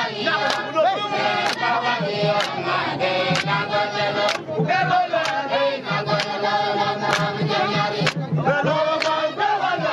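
A crowd singing a chant together, over a sharp beat struck about once a second.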